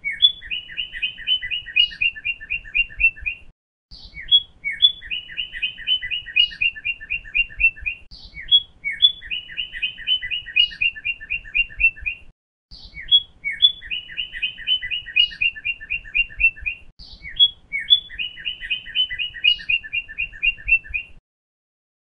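A songbird singing the same short phrase five times, about every four seconds: a few high opening notes, then a rapid, even trill of about fifteen notes.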